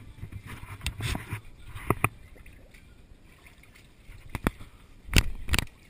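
Water sloshing in a small inflatable kiddie pool, broken by several sharp splashes and knocks as a baby plays in the water. The loudest come about five seconds in.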